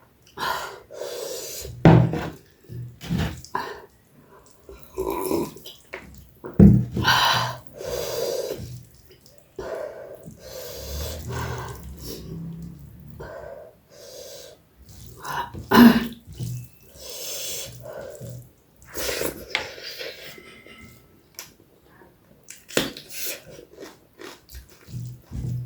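Close-up eating sounds: wet chewing and slurping of noodles and soup, coming in irregular short bursts with brief pauses and a few sharp mouth clicks.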